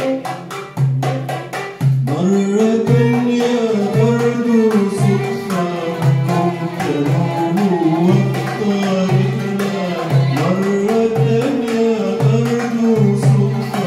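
A small traditional ensemble: a male voice singing into a microphone with violins and oud, over a steady goblet-drum beat. The voice comes in about two seconds in, after a short violin passage.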